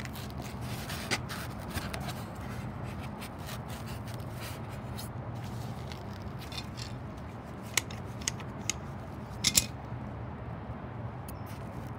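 Light clicking and scraping from tools and parts being handled, with a few sharp clicks, two of them close together near the end, over a steady low hum.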